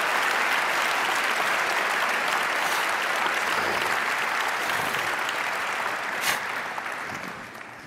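Audience applauding, a dense steady clapping that dies away near the end, with one sharp crack about six seconds in.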